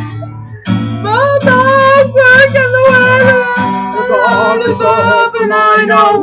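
Two women's voices singing a song together over a strummed acoustic guitar; the singing comes in about a second in.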